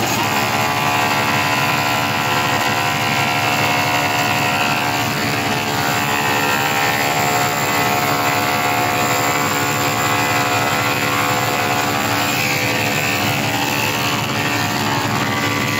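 A loud, steady electronic drone holding many pitches at once, blaring from a DJ truck's clusters of horn loudspeakers.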